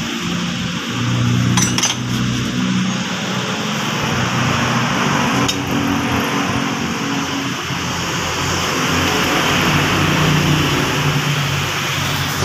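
A few sharp metallic clinks as a car power-window regulator and its motor are handled and fitted together, over steady background noise with a low, shifting hum.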